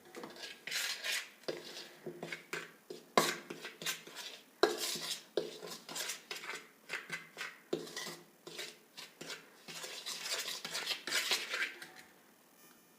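A utensil stirring and scraping powdered churna in a vessel, with repeated scrapes and clinks against the dish that stop about a second before the end.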